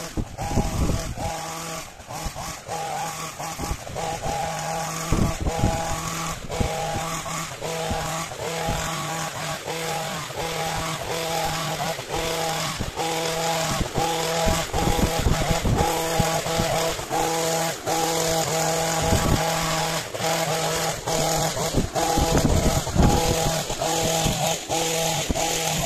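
Petrol long-reach pole hedge trimmer's small two-stroke engine running steadily under load as it cuts a hedge, with brief dips in its note.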